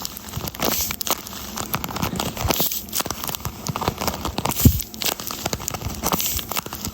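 A paper squishy, a taped paper craft stuffed with soft filling, being squeezed and handled over and over, its paper and tape crinkling and crackling. One duller thump comes about two-thirds of the way through.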